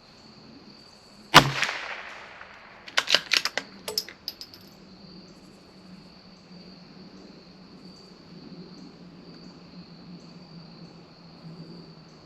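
A single .22 LR rifle shot from a CZ 457 bolt-action rifle, followed about a second and a half later by a quick run of sharp metallic clicks as the bolt is worked to chamber the next round. Crickets chirp steadily throughout.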